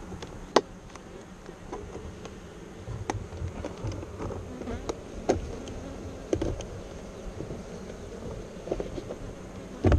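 Honeybees buzzing steadily around an open hive, with occasional sharp clicks and knocks, the loudest about half a second in.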